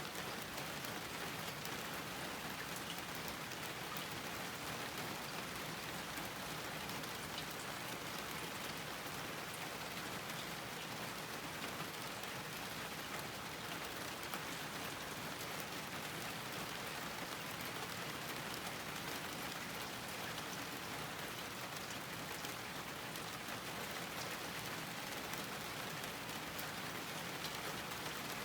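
Steady rain falling on a garden, an even hiss with many small scattered drop ticks.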